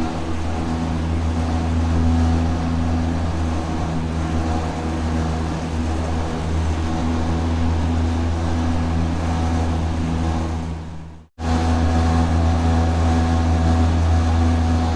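Industrial rotating machinery running with a steady low hum and several steady tones above it. About three-quarters of the way through it fades out briefly, then cuts straight back in at full level.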